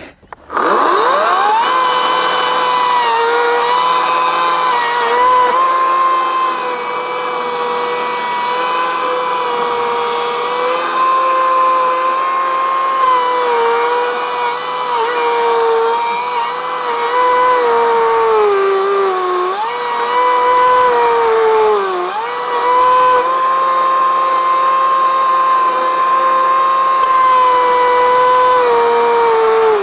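Ryobi 40V brushless 18-inch battery chainsaw (RY40580) spinning up about half a second in, then running steadily while cutting into a stump. Its whine sags in pitch several times as the chain bogs down in the cut, most deeply twice in the second half.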